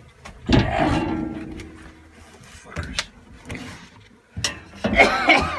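Knocks, scrapes and shuffling of people climbing down out of an attic, with a few sharp knocks in the second half and a loud pitched sound near the end.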